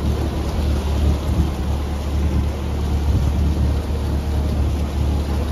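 Motorboat running at speed: a steady low rumble and rushing water along the hull and wake, with heavy wind buffeting the microphone.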